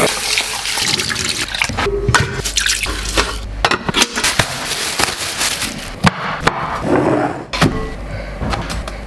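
Kitchen cooking sounds: a steady rushing hiss with many quick clicks and knocks of utensils and cookware, broken by a few abrupt cuts.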